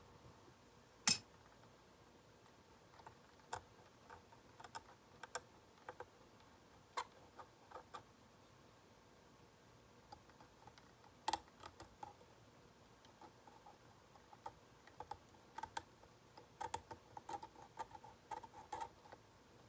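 Faint, irregular clicks and light scrapes of a metal dental hand scaler working against the plastic teeth of a typodont during scaling strokes. There is a sharper click about a second in, another about halfway, and a quick run of clicks near the end.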